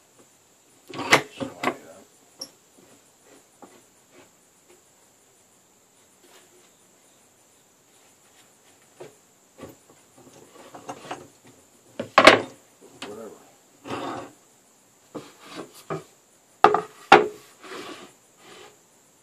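Wooden knocks, clunks and rubbing as clamp parts and bench dogs are handled, slid and set into holes in a wooden workbench. It is mostly quiet from about two to nine seconds in, and the knocks come thicker from there on, the loudest a sharp knock about twelve seconds in.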